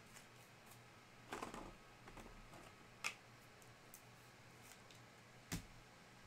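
Near silence with faint room tone, broken by a brief soft rustle about a second and a half in and two sharp single clicks, near three seconds and about five and a half seconds in.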